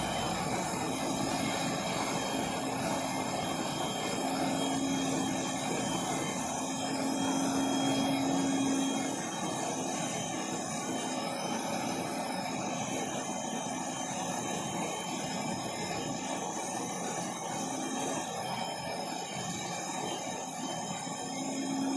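Hand-held gas torch burning steadily with a rushing hiss, heating a steel rifle barrel to tin it with solder. A low hum fades in and out under it.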